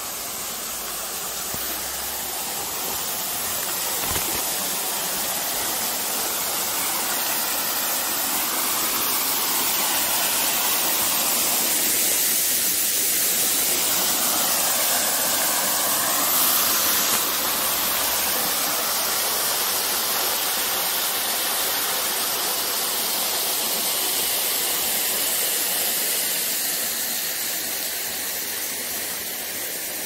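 Small waterfall pouring down a rock face into a shallow pool: a steady rush of falling and splashing water that grows louder through the middle and eases off a little near the end.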